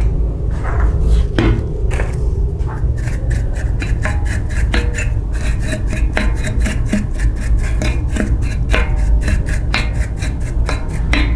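A fast run of light clicks and taps, several a second, from about three seconds in, some with a short metallic ring. Under it is a steady low hum.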